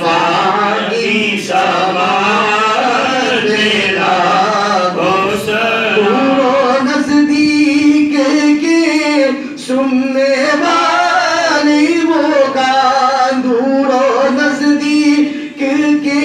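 A man singing a devotional salaam into a handheld microphone, his voice drawn out in long, wavering melodic phrases.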